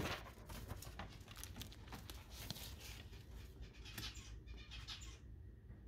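A sharp knock at the start, then faint rustling and small clicks of things being handled, which stop about five seconds in.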